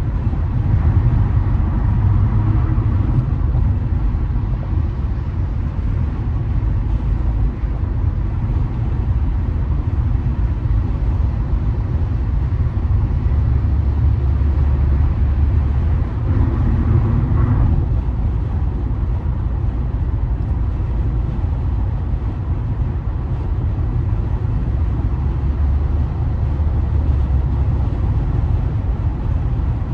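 Steady low rumble of a car driving at freeway speed, tyre and engine noise heard from inside the cabin. A brief swell comes a little past halfway through.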